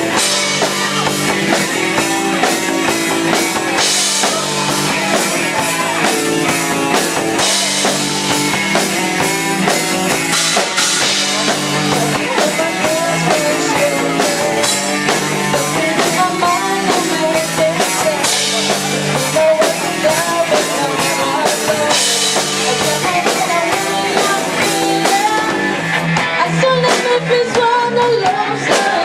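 Amateur rock band playing live: a lead vocal sung over drum kit, electric guitar and bass, with crash cymbals hit every few seconds.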